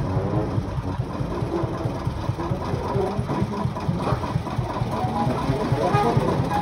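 Small narrow-gauge diesel locomotive's engine running with a steady, fast low chugging beat as the locomotive moves slowly along the track.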